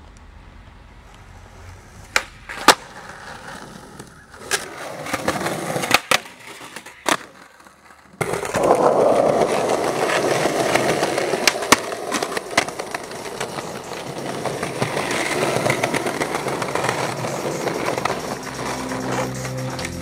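Skateboard: a few sharp, separate clacks of the board hitting the ground. Then, from about eight seconds in, the wheels roll loudly and steadily over rough concrete, with a couple more clacks.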